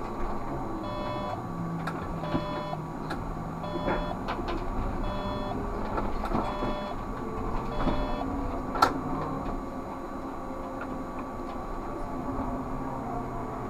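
Inside a Škoda 30Tr SOR trolleybus on the move: the steady hum of its electric drive, with a short electronic beep repeating about once a second and occasional knocks and rattles from the body over the road.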